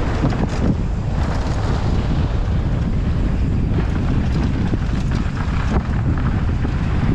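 Heavy wind buffeting on a helmet-mounted camera's microphone during a fast mountain-bike descent, over tyre rumble on a gravel trail and scattered small clatters from the bike over the rough surface.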